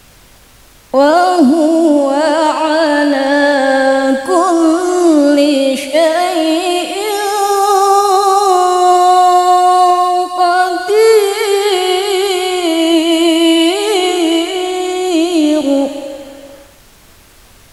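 A woman reciting the Quran in the melodic tilawah style, singing one long ornamented phrase with held, wavering notes for about fifteen seconds, amplified through a microphone. It starts about a second in and fades out near the end.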